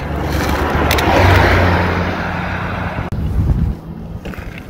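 A car going by on the road, with a low engine hum and tyre noise that swell to a peak about a second in and fade, then cut off suddenly about three seconds in.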